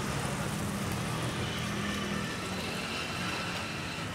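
Steady rumble and hiss of a gas wok burner running under a wok of hot oil where potatoes are deep-frying.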